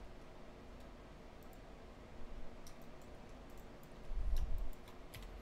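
Scattered computer mouse clicks, single and in small clusters, over a faint steady hum. A low thud about four seconds in is the loudest sound.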